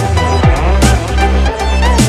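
Electronic dance music with a heavy beat: a deep kick drum about twice a second over sustained bass, with a bowed-string-like melody on top.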